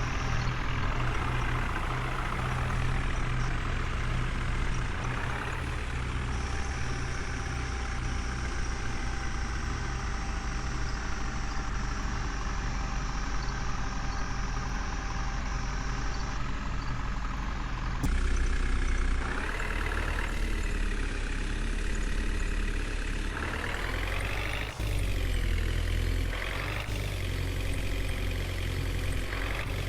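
Diesel engines of a backhoe loader and tractors running steadily, with an engine revving up and falling back several times in the second half.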